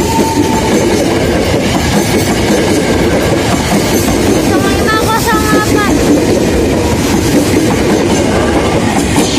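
Tokyo Metro 05 series electric commuter train passing close by: a loud, steady rumble of wheels on rail. A brief higher-pitched squeal comes about halfway through.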